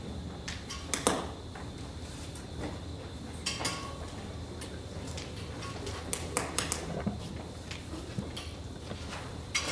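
Scattered clicks and knocks of objects being handled and moved, the sharpest about a second in and a short cluster past the middle, over a steady low hum.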